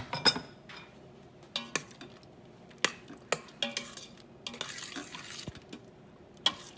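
Instant Pot lid and stainless steel inner pot being handled as the cooker is opened after pressure cooking: a series of sharp metal knocks and clinks, some ringing briefly, with a short rushing noise about five seconds in.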